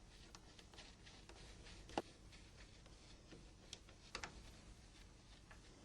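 Near silence with a few faint, sharp clicks, the clearest about two seconds in and a close pair a little after four seconds: a small Torx screwdriver ticking against the phone's screws as they are released.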